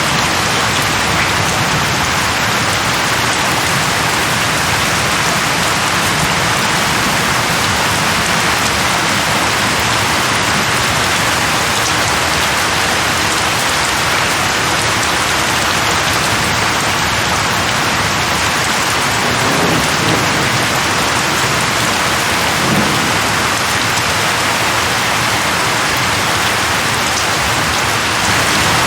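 Steady rain falling, an even dense hiss, with a brief low rumble about twenty seconds in.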